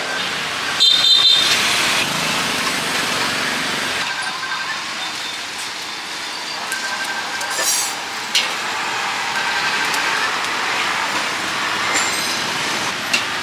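Busy street noise: a steady hiss with motor traffic passing, a short high squeal and some clicks about a second in, and a few sharp ticks later.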